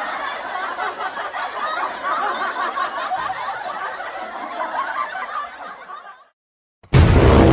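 Many people laughing together, which fades out about six seconds in. After a short silence, a loud music cue with deep bass starts abruptly near the end.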